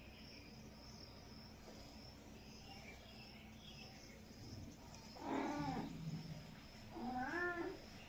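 Domestic cat meowing twice, a longer wavering meow about five seconds in and a shorter one about two seconds later.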